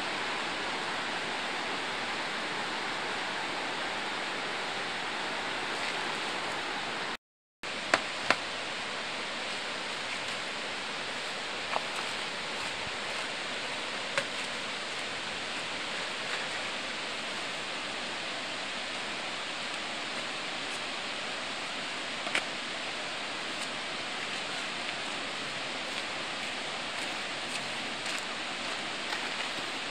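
Steady rushing of flowing water, like a river below the campsite, with a few sharp knocks: two close together about eight seconds in, then scattered single ones. The rushing drops out for a moment just before the first knocks.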